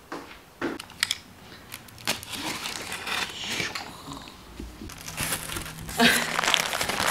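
Plastic bags of furniture screws and fittings and cardboard packaging crinkling and rustling as hands rummage in an opened flat-pack box, with a few light knocks in the first two seconds.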